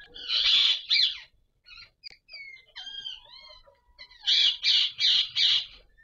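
Indian ringneck parakeets calling during mating: a harsh screeching burst at the start, a few thin whistled gliding notes in the middle, then four loud harsh screeches in quick succession near the end.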